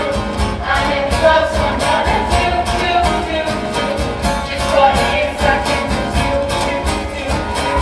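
Mixed-voice show choir singing an upbeat pop song over live band accompaniment with guitar and a steady beat.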